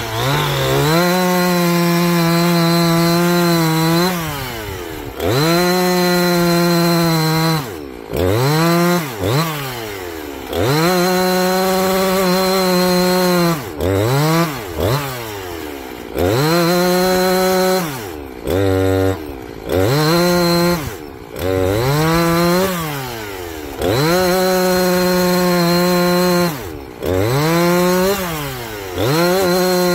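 Husqvarna 345 two-stroke chainsaw bucking a log: the engine revs up to full throttle and holds a steady pitch for two to three seconds at a time, then drops back to idle, over and over, with a few short blips of the throttle between cuts. It runs smooth.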